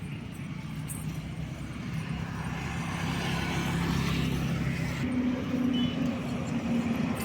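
A steady engine hum, typical of a motor vehicle, growing gradually louder, its pitch stepping up about five seconds in.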